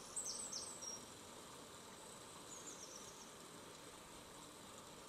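Faint, short high-pitched chirps, a few in the first second and a few more around three seconds in, over a steady low hiss.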